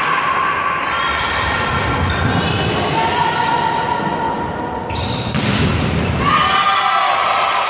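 Volleyball rally in an echoing sports hall: players and spectators shouting and cheering over the thuds of the ball being hit. There is a sharp hit about five seconds in.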